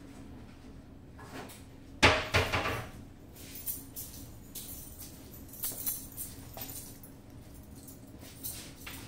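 A sharp metallic knock about two seconds in, then scattered clinks and rattles of metal parts being handled, as a power supply is worked loose from a resuscitator's housing. A faint low hum runs underneath.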